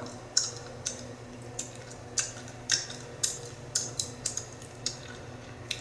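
Bubblegum being chewed and snapped in the mouth: a run of sharp cracking pops, about two a second, with a low steady hum underneath.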